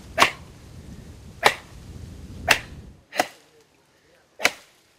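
A small hand axe chopping into a live oak branch: five sharp blows, roughly one a second.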